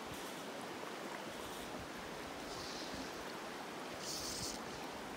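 Shallow river flowing over a stony bed: a steady rushing of water, with a short higher hiss about four seconds in.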